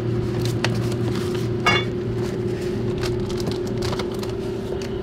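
Steady low machinery hum of a refrigerated ship's store, with light rustling and scattered clicks and knocks of packets and boxes as someone rummages on a steel shelf.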